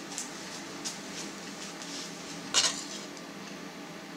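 A metal spoon scooping loose rice-and-meat filling from a frying pan and packing it into a hollowed tomato. There are light clicks, and one louder scrape of the spoon about two and a half seconds in.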